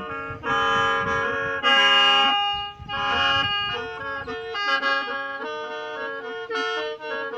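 Hmong khèn (qeej), a bamboo free-reed mouth organ, playing a run of sustained chords over one steady drone note, the chords changing every half second to second. It swells loudest about two seconds in, with a brief break just before three seconds.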